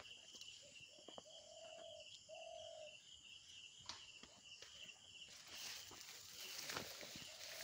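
Outdoor ambience in a rice paddy: a steady, faint insect trill throughout, with two or three low, held bird calls in the first three seconds. Footsteps and rustling through the rice plants come in near the end.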